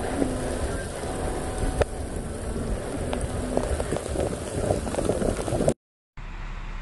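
Heavy rain pelting down on rocky ground: a dense hiss full of small drop patters. It cuts off suddenly near the end, and after a brief gap a duller steady rushing noise follows.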